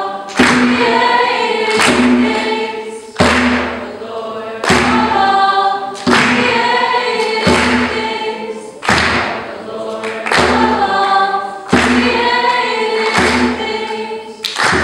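A group of voices singing a chorus together with acoustic guitar, a loud percussive hit marking the beat about once every second and a half.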